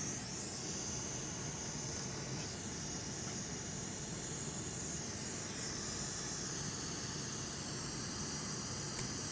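Steady hiss with a faint, wavering high whistle that sweeps up and down a few times.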